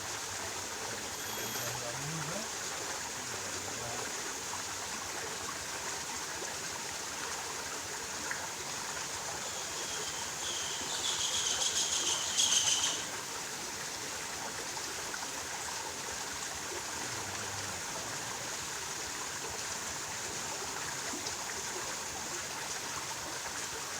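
Steady rushing of a flowing stream. About eleven seconds in, a brief high-pitched rattling trill rises in level for about two seconds and then stops abruptly.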